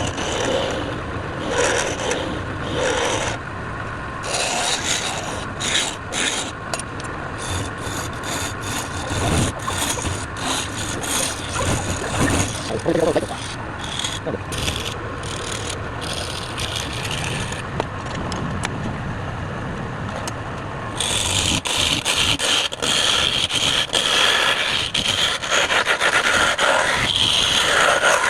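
A wood workpiece spinning on a lathe with a tool or abrasive held against it, making a continuous scraping rasp. About 21 seconds in the sound turns louder and brighter.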